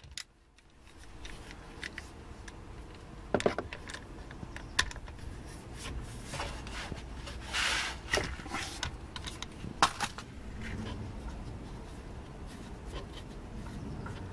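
Scattered metal clicks, knocks and scrapes of a hex key being worked on the filler plug of the rear differential, with a brief rubbing hiss a little past halfway.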